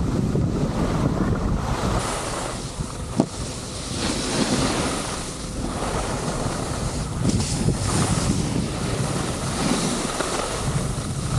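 Wind buffeting the microphone during a downhill ski run, over the hiss and scrape of skis sliding on packed snow. There is one sharp knock about three seconds in.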